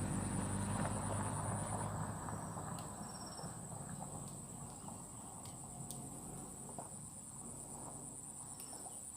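Insects chirring in a steady high-pitched drone, with a low hum that fades away in the first couple of seconds.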